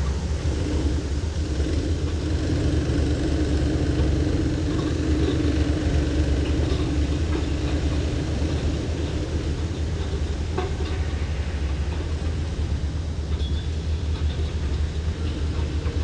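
Steady low mechanical rumble, with a droning hum that comes in about half a second in and fades after about nine seconds.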